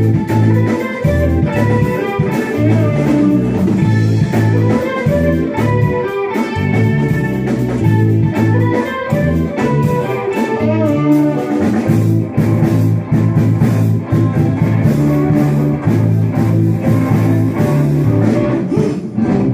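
A small rock band playing a bluesy instrumental passage: electric guitar leading over drum kit and keyboard, without vocals.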